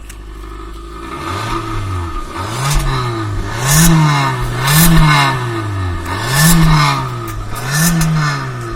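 Maruti Suzuki Ciaz engine and exhaust revved in quick throttle blips: it idles briefly, then rises and falls in pitch about six times, roughly once a second.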